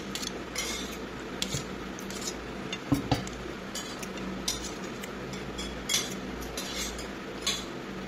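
Cutlery clinking against a dish while eating, in scattered light clicks, the sharpest about three seconds in.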